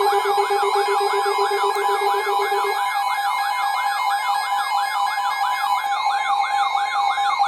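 Electronic warning siren sounding for a tornado warning, its pitch rising and falling about three times a second over a steady tone. A lower pulsing tone drops out about three seconds in.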